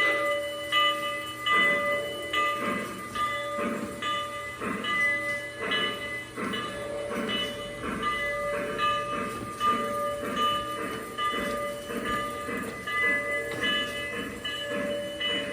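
Model steam locomotive sound: a bell ringing steadily, joined about a second and a half in by regular steam chuffing as the locomotive moves.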